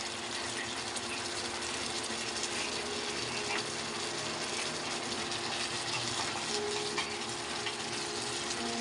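Chicken afritada's tomato sauce simmering in a frying pan: a steady bubbling and sizzling with small crackles.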